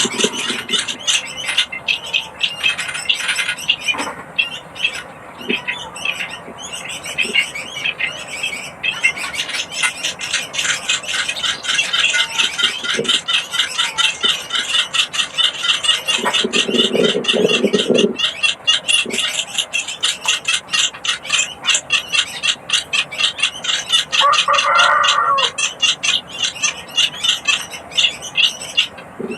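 Munia chicks begging with a rapid, continuous stream of short, high, scratchy calls, the sound of nestlings clamouring to be fed. Two brief lower-pitched sounds break in, one about halfway through and another later on.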